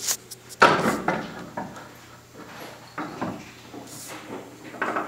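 Knocks and clanks of metal parts and tools being handled, the loudest about two-thirds of a second in and another about three seconds in; the engine is not running.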